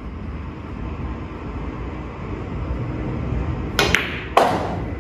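Pool shot: two sharp clicks close together, of the cue tip and the balls, about four seconds in, then half a second later a louder clack with a short ring. A steady low room hum runs under it.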